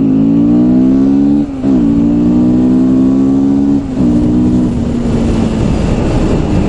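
Honda CBR 250R single-cylinder motorcycle engine accelerating through the gears. The note climbs, drops sharply at a shift about a second and a half in, climbs again and drops at a second shift near four seconds, then fades into a steady rushing noise.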